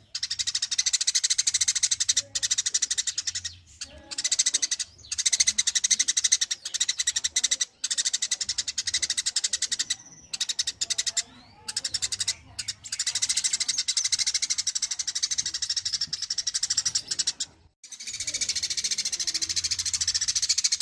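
A recorded masteran call: a rapid, high-pitched chattering trill in bursts of one to five seconds, with short breaks between them.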